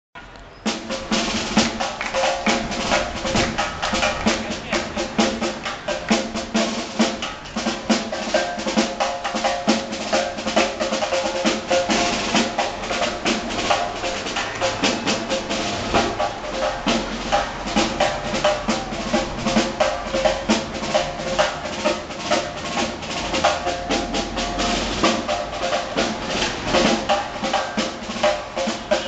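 A drum beaten by hand in a fast, steady rhythm, many strikes a second, starting about half a second in.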